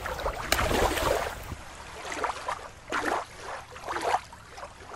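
Shallow shore water lapping and sloshing. About a second and a half in it switches to a quieter, different water sound with irregular gurgling surges.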